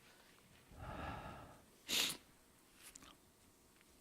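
A man breathing close to a microphone: a drawn-out breath about a second in, then a short, loud, hissy breath noise about two seconds in.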